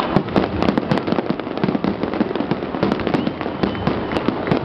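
Fireworks display at full barrage: many aerial shells bursting and crackling close together, the bangs overlapping into a continuous dense rattle with no pause.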